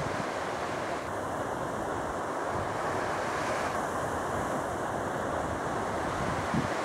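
Sea surf breaking and washing over rocks on a rocky shore, a steady rushing noise.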